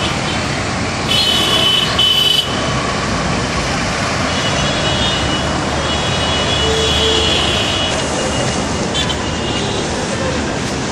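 Busy city street traffic: a steady din of engines and road noise, with a loud, high-pitched horn sounding for about a second near the start and more horn sounds around the middle.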